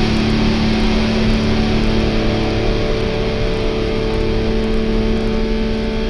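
Distorted electric guitar from a punk/alternative rock song, holding a steady chord over a dense wash of distortion.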